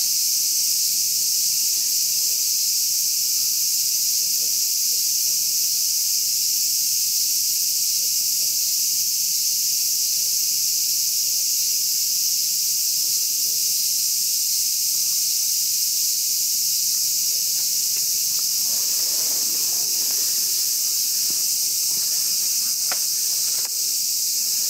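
A dense, steady chorus of insects: an unbroken high-pitched chirring that does not let up, with a few faint rustles and a click near the end.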